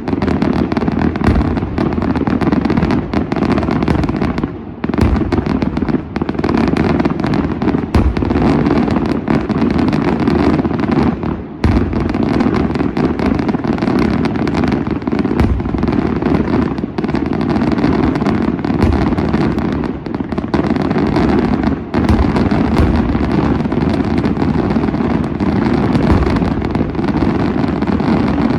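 Daylight fireworks display: a loud, dense barrage of rapid bangs and crackling, breaking off only briefly about 5, 11.5 and 22 seconds in.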